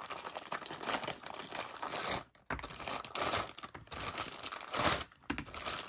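Plastic kit bag crinkling and rustling as it is handled, with two short pauses.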